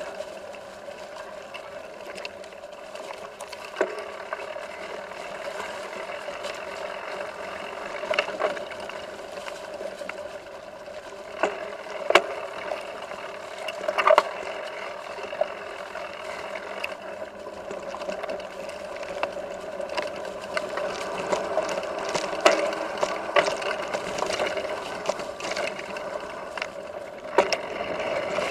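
Mountain bike riding over a leaf-covered dirt trail: a continuous rattle and rolling noise, broken by many sharp knocks from bumps, the loudest ones about halfway through.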